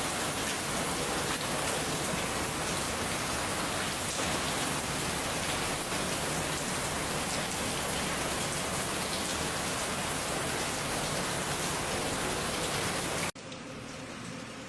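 Heavy rain pouring steadily, a dense even hiss. About thirteen seconds in it cuts off abruptly and a quieter, thinner hiss takes over.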